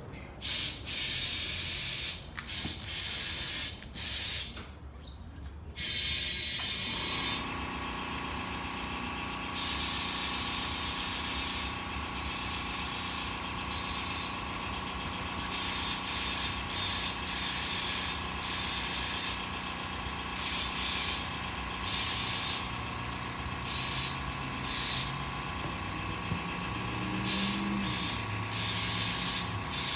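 Compressed air hisses in repeated blasts from an air hose into a tractor tire whose bead is not yet seated on the rim, so air escapes around it. About seven seconds in, an air compressor starts and keeps running with a steady hum under the blasts.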